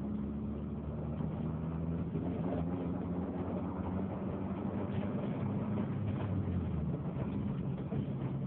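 Car engine running steadily, with its pitch dropping a little near the end; the owner suspects it may be misfiring.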